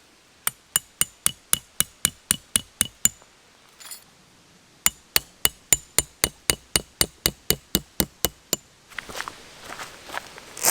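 Hammer driving a metal tent peg into the ground: two runs of quick, evenly spaced strikes, about four a second, each with a short metallic ring, with a pause of under two seconds between the runs. Rustling and a single sharp knock follow near the end.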